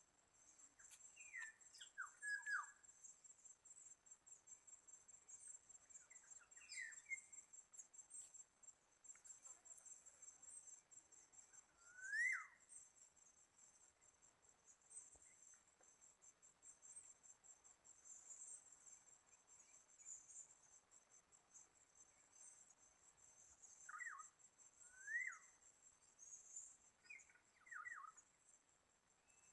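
Faint, short whistled calls of a black-naped oriole, each rising then falling, a few seconds apart, over a steady high insect trill.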